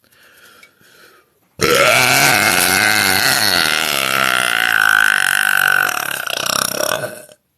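A woman's long, loud deliberate belch, starting about a second and a half in and running unbroken for nearly six seconds. It goes really low toward the end, then cuts off.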